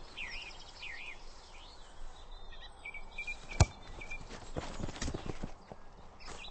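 A football kicked once with a sharp thud about three and a half seconds in, followed a second later by a few softer knocks. Birds chirp in a steady outdoor hiss.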